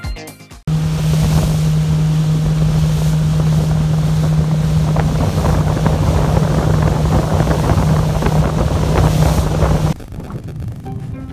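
A fishing boat's engine running with a steady low drone as the boat travels over open sea, with wind buffeting the microphone and rushing water. It starts abruptly about a second in and cuts off abruptly near the end, leaving quieter wind and sea noise.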